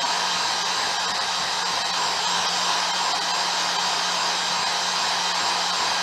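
Handheld hair dryer running steadily: an even blowing rush with a faint, constant motor hum beneath it.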